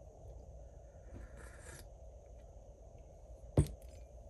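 Quiet room hum with faint rustling, then about three and a half seconds in a single sharp knock as a glass mug is set down on a cutting mat.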